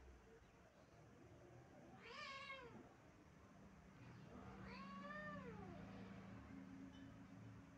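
A stray cat howling faintly, two drawn-out meows that each rise and then fall in pitch; the second, about five seconds in, is longer than the first.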